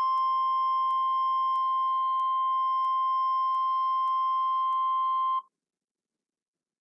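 Emergency alert attention tone: one steady, piercing single-pitch tone that cuts off suddenly about five and a half seconds in.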